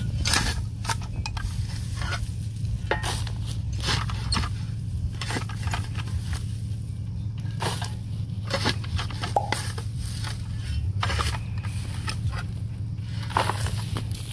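Metal spade blade chopping and scraping into dry soil, grass and leaf litter in repeated irregular strokes, over a steady low rumble.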